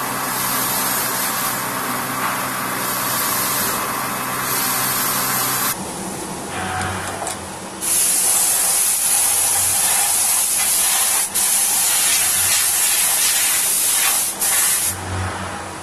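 Vertical machining centre face milling an aluminium part: a loud, steady spray-like hiss over the machine's low hum. The hiss drops out for about two seconds near the middle and cuts off briefly twice later.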